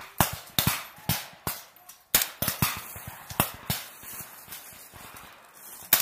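M16-series rifles firing blanks in single shots: about a dozen sharp cracks, irregularly spaced, then a pause of nearly two seconds before one more shot near the end.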